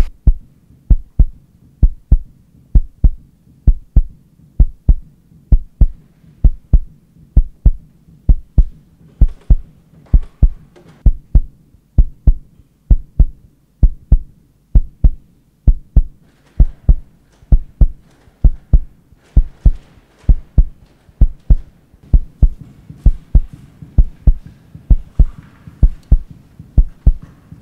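A slow heartbeat on the soundtrack: deep double thumps, lub-dub, about one a second, keeping an even pace throughout.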